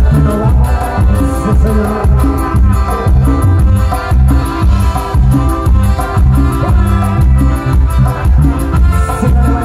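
Live band playing Latin dance music through a PA, loud: keyboard, electric bass, acoustic guitar, and a drum kit with timbales keeping a steady beat under prominent bass notes.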